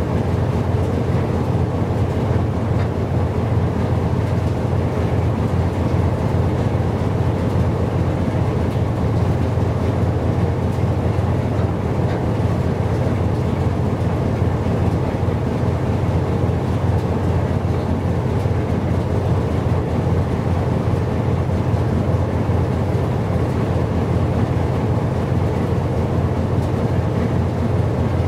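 Steady wind rumble buffeting the microphone, a deep continuous noise without any distinct tone.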